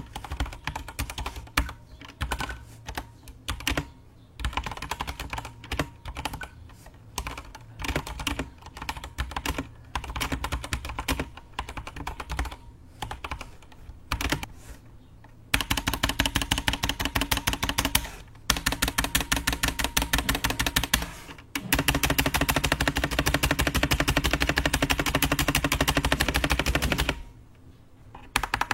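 Mechanical keyboard with stock Outemu Black linear switches being typed on: irregular keystrokes at first, then, about halfway through, long runs of very rapid, even key clicks with brief breaks. The owner finds these switches heavy, with quite audible spring ping.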